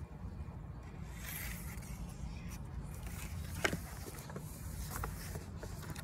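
Steady low outdoor background rumble, with the soft rustle of a hardback picture book being handled and one sharp click a little past halfway.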